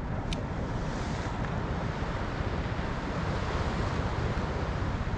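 Steady wind rushing over the microphone, mixed with the wash of water around a kayak.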